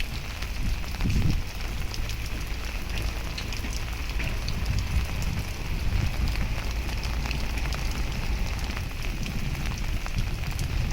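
Heavy rain falling, a dense patter of drops, over a steady low rumble.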